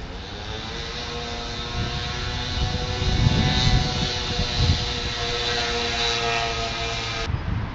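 Engine noise of a passing vehicle: a steady droning whine with rumble underneath. It grows louder to a peak around the middle, then cuts off suddenly near the end.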